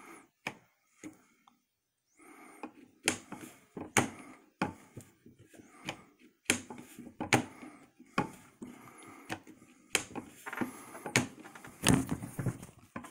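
Mossberg pump-action shotgun's action worked back and forth several times, giving a string of sharp metallic clicks and short sliding sounds. Its worn feed parts have been freshly filed to new angles so the shells can pass into the elevator.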